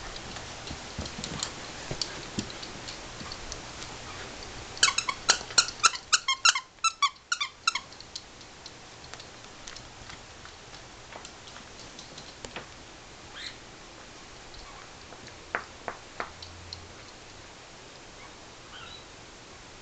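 Dogs playing tug with plush toys: light scuffling and clicks, with a fast run of about a dozen loud, high-pitched sounds about five seconds in.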